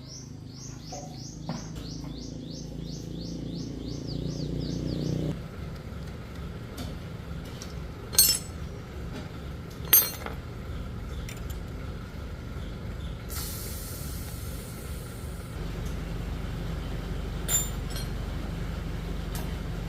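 Metal clinking of hand tools and parts, with three sharp clinks standing out over a steady low hum. In the first few seconds a rapid series of about four high chirps a second, typical of a bird, sounds over the hum.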